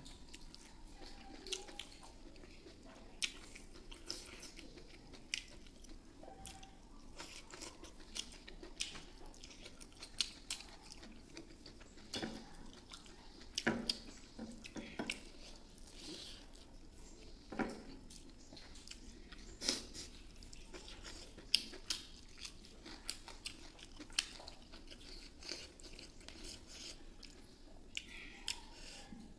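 A man chewing rice and beef innards close to the microphone. Short, irregular clicking mouth noises run at a few per second.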